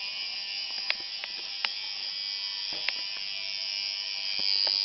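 Electric tattoo machine buzzing steadily while it runs on skin, with a few sharp clicks in the first three seconds.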